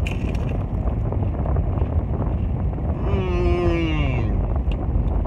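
A man lets out a long hum of enjoyment while eating, sliding down in pitch, about three seconds in. A few crisp crunches of a fried rolled taco shell come at the start, over a steady low rumble inside a car.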